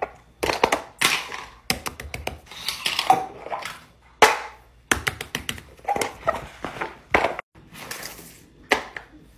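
Silicone pop-it fidget toys being handled and set down on a paper-covered table: an irregular run of sharp pops, taps and soft thunks, with brief rustling between them.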